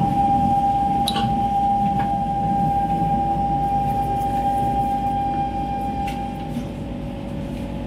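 Siemens C651 train's traction inverter and motors whining as it brakes into a station: one steady high-pitched whine that fades out about six and a half seconds in, over the low rumble of the car, with a click about a second in.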